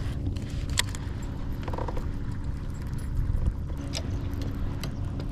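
Wind rumbling on the microphone over choppy water around a kayak, with a faint steady hum and a few short clicks.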